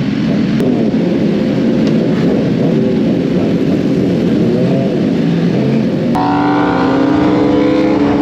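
Several sport motorcycles idling and revving together, a dense overlapping engine rumble with a few pitch swings. About six seconds in it changes abruptly to a single motorcycle engine held at steady revs while riding, heard from the rider's seat: the rider's BMW S1000RR inline-four.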